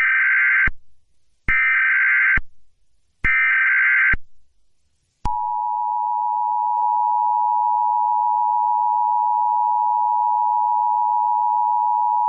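Emergency Alert System SAME header: three short bursts of screeching digital data. About five seconds in, the two-tone EAS attention signal begins and holds steady, marking the start of a Child Abduction Emergency (Amber Alert) broadcast.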